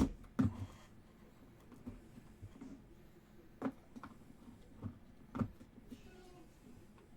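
Handling noise from opening a case of trading cards on a table: a few sharp knocks and taps, two close together at the start and three more spread over the last few seconds.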